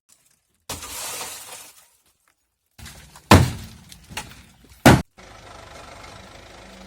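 A rushing hiss, then two loud sharp bangs about a second and a half apart, then a Ford Mondeo engine idling steadily.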